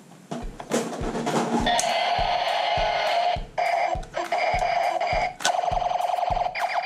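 Electronic tones and buzzing over a regular thudding beat, about two beats a second, with short sweeping electronic tones late on.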